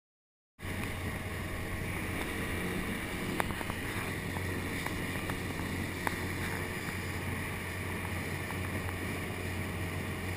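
Small boat running under motor across choppy water: a steady low motor hum under the rush of wind and water, with two brief sharp knocks a few seconds apart.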